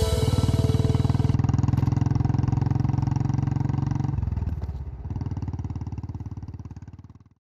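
Motorcycle engine running with a rapid, even pulse. About four seconds in it drops and dips, picks up again, then fades out near the end.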